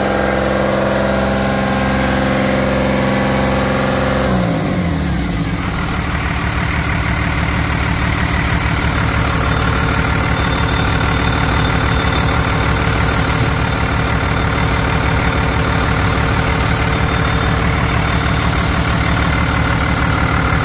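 1999 Cummins ISB 5.9 inline-six turbo diesel running at raised revs, then dropping back about four seconds in and idling steadily.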